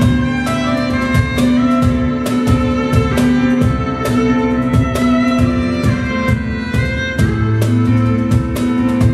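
Electric violin playing a melody over a live band, with a steady drum beat and a sustained bass line.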